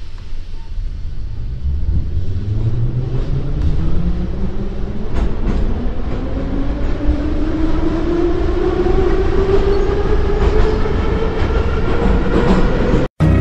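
Metro train pulling away and picking up speed, its motor whine rising steadily in pitch over a low rumble; the sound cuts off suddenly near the end.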